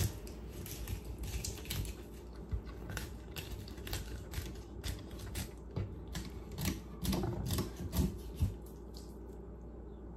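Fillet knife cutting a mackerel down along its spine on a cutting board: a run of irregular sharp clicks and crackles as the blade rides over the backbone, stopping near the end as the fillet comes away.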